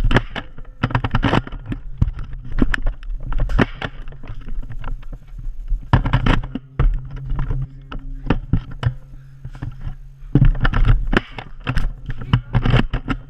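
Irregular knocks and thumps from footsteps on a hardwood floor and a jostled handheld camera, over a steady low hum.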